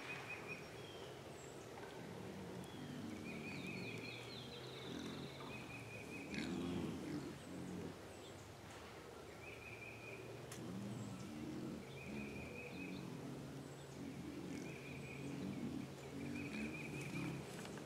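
A group of feral hogs grunting low and repeatedly as they feed, with a bird giving a short trill every second or two.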